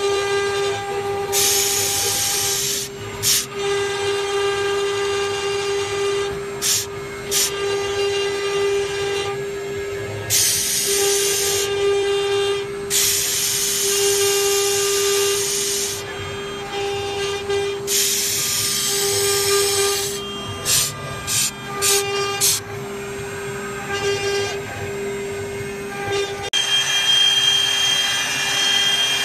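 CNC router spindle running with a steady high whine as its small engraving bit cuts into a board. Stretches of loud hissing cutting noise come and go over the whine. Near the end the sound changes and a higher tone joins in as the bit carves a wooden dowel turned on the rotary fourth axis.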